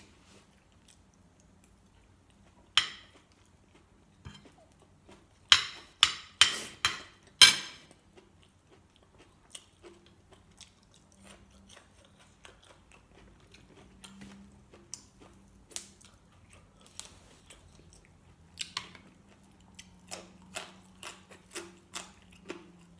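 Close-up sounds of a person eating spicy chicken liver curry with fresh vegetables. A sharp crunch comes about three seconds in and a loud run of crisp crunches from five to eight seconds in. Quieter, regular wet chewing follows, with mouth clicks.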